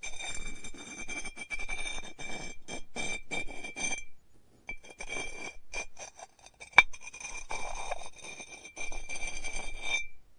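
Pottery studio work sounds: a steady high-pitched whine under rapid clinks and scrapes. It cuts out briefly about four seconds in, and there is one sharp click about seven seconds in.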